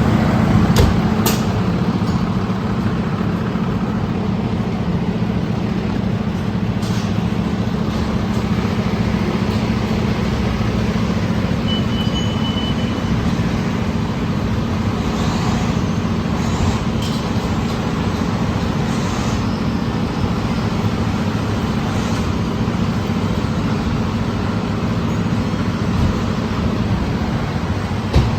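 A fire truck's engine idling steadily, with a constant low rumble that holds the same pitch throughout, a few clicks in the first second or so, and a short high beep about twelve seconds in.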